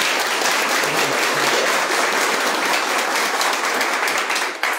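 Audience applauding: a dense, steady round of many hands clapping that thins out and fades near the end.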